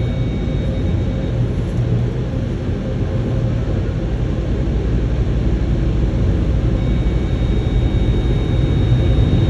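Touchless car wash machinery running, a steady rushing noise heard from inside the car's cabin, growing a little louder toward the end.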